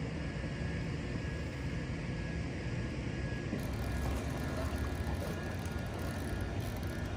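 Boat motor running steadily at trolling speed.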